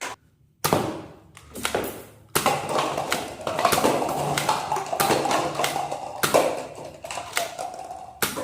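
Plastic toy guns being handled: a quick run of irregular clicks, taps and knocks of plastic parts.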